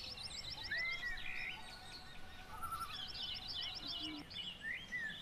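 Birds calling: rapid chattering trills in two spells and a few short arching whistled notes, over faint background noise.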